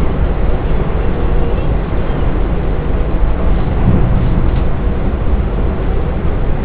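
S-Bahn train running at speed, heard from inside the passenger car: a steady, loud rumble of wheels on the track and running noise.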